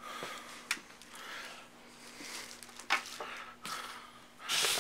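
Unboxing handling noise: soft rustling of packaging with a few light clicks and knocks as parts are moved.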